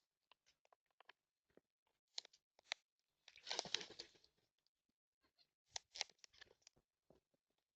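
Faint crunching and clicking of birds cracking and husking seed at a feeder. A louder scratchy rustle lasts about a second a few seconds in, with more crackles around the middle.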